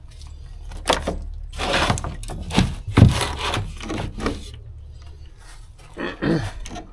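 Irregular knocks, taps and rustling of objects being handled and set down on a metal utility shelf, the loudest knock about three seconds in.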